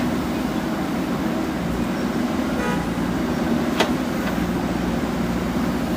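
Diesel engine of a JCB backhoe loader running steadily with a constant hum, and a single sharp knock about four seconds in.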